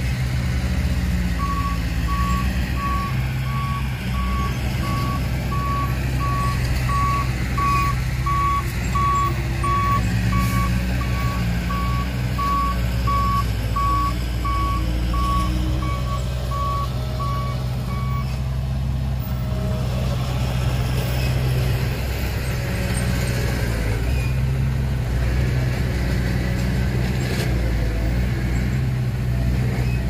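Reversing alarm on a heavy construction vehicle beeping steadily at one pitch, less than two beeps a second, over a running diesel engine; the vehicle is backing up. The beeping stops about eighteen seconds in while the engine runs on.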